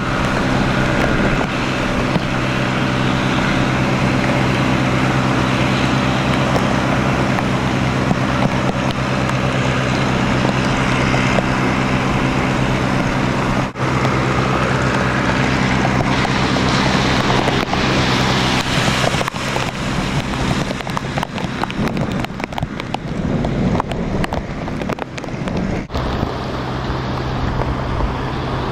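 Floodwater in a swollen creek rushing steadily, with wind buffeting the microphone and a steady low hum beneath, broken by several abrupt cuts.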